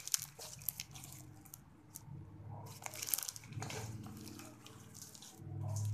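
Homemade slime with rice mixed in being squeezed and stretched by hand, giving irregular crunchy crackles and clicks.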